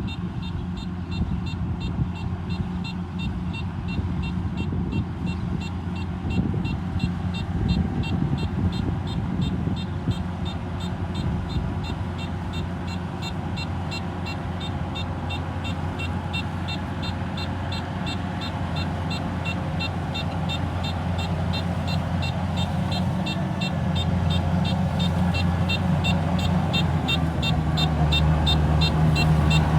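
Kubota rice harvester's engine running steadily under load, with a fast, even ticking from the machinery over it. It grows louder over the last few seconds.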